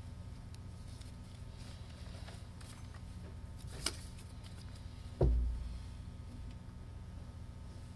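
Steady low hum from the sound system, with a small click about four seconds in and then one low thump at the lectern, picked up close by its microphone.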